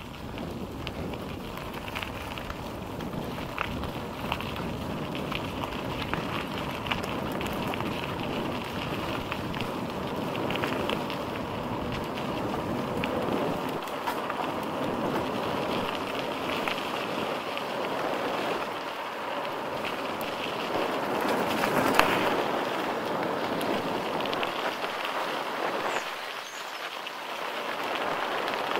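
Mountain bike rolling downhill on a rough trail: a steady rush of tyre and trail noise with scattered rattles and clicks. One sharper knock comes about three quarters of the way through.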